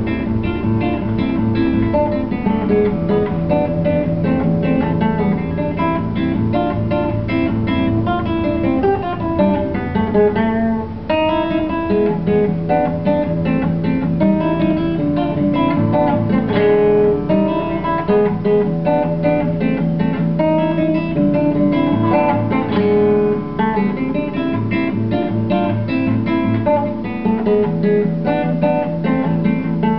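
Classical guitar played fingerstyle, a picked melody over a moving bass line, with a brief break about eleven seconds in and a few quick strummed chords in the middle.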